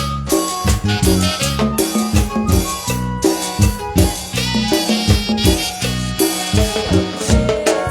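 Instrumental Latin dance-style music with a steady drum beat, bass line and percussion: a band playing an interlude in a Spanish-language church hymn.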